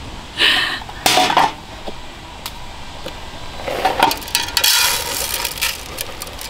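Aluminium mess tins clattering as they are handled and set down, then washed rice poured from a silicone zip bag into an aluminium mess tin, the grains pattering into the metal for about two seconds.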